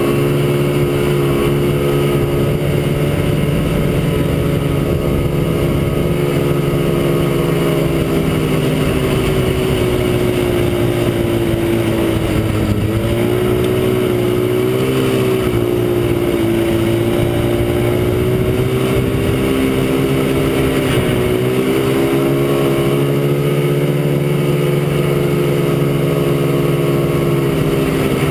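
Vintage Ski-Doo Blizzard snowmobile's two-stroke engine running under way at a steady, high pitch. The pitch drops and recovers about halfway through and again about three-quarters in, as the throttle eases off and opens again.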